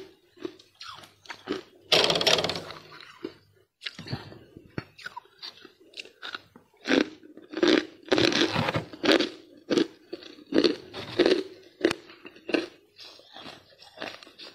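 Thick, fluffy freezer frost being scraped and crunched in irregular strokes, with a longer scrape about two seconds in and a busier run of crunches around eight seconds in.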